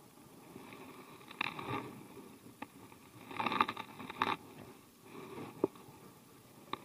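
Handling noise from fishing gear close to the microphone: irregular rustling with a few sharp clicks, in three longer bouts about a second and a half, three and a half and five seconds in.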